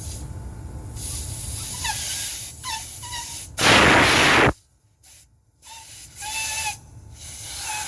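Hissing spray flushing a Trane packaged HVAC unit, with one loud full-strength blast lasting about a second near the middle. Several short, high-pitched chirps come through the hiss.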